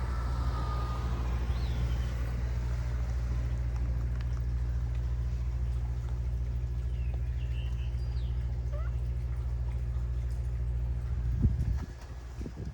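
A steady low engine hum that stops suddenly near the end, with a few faint short high chirps over it.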